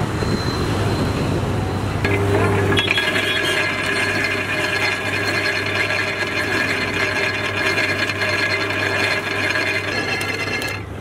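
Street traffic for about two seconds, then a belt-driven sugarcane juice extractor running steadily, its gears meshing and steel rollers crushing cane stalks fed through them.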